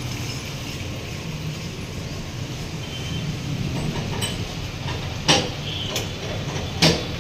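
Metal clanks from hands and tools working on the differential under a Mazda CX-5 as it is refitted. A few light clicks, then two sharp knocks about a second and a half apart, over a steady low workshop hum.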